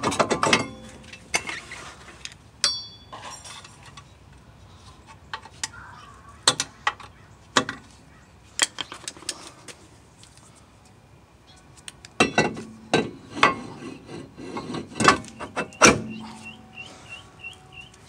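Scattered sharp metallic clicks and clinks of rear brake parts being handled on a 2016 Hyundai Sonata: the brake rotor, whose hat serves as the parking-brake drum, is worked off and back onto the hub over the parking brake shoes. Louder knocks bunch together about twelve to sixteen seconds in.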